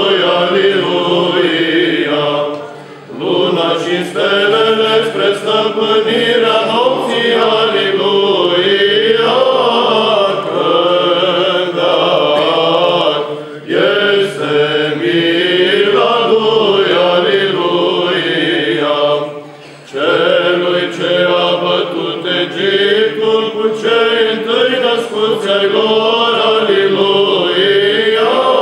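Byzantine chant choir singing a long drawn-out melismatic passage over a steady low held drone, with brief pauses about 3, 14 and 20 seconds in.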